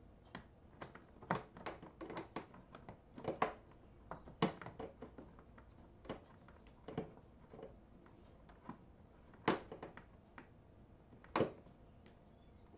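Hands fitting screws and spacers into a Honda Gold Wing's passenger backrest mount: irregular light clicks and taps of metal and hard plastic, with two louder knocks about two seconds apart in the second half.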